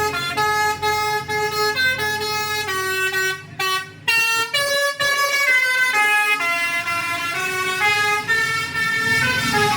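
Basuri V4 telolet multi-tone air horn on a bus playing a melody of stepped horn notes. The tune breaks off briefly a few seconds in, then carries on.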